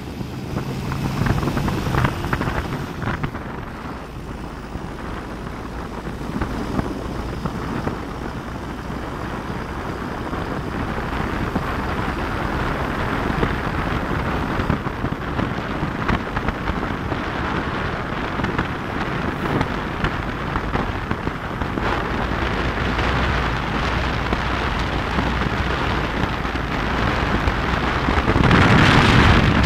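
Wind rushing over the phone's microphone in the open bed of a moving pickup truck, with the truck's engine and tyre noise low underneath. The rush grows slowly and gets much louder near the end.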